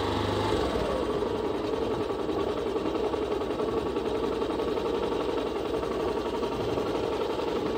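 Vehicle engine running steadily while driving along a rough dirt road.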